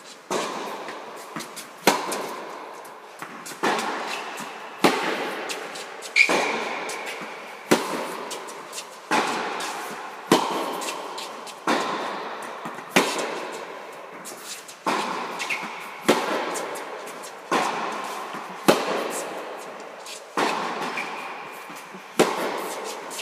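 Tennis rally in an indoor hall: sharp racquet-on-ball strikes and ball bounces in a steady rhythm, about one every second and a half. Each hit rings out in the hall's echo.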